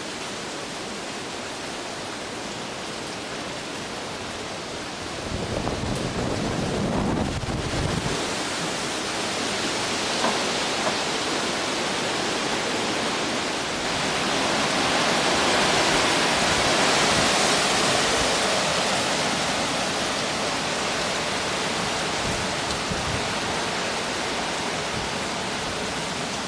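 Hurricane wind and heavy rain making a steady rushing noise that swells in gusts, louder from about a third of the way in and again near the middle. A low rumble of wind buffeting the microphone comes about five seconds in.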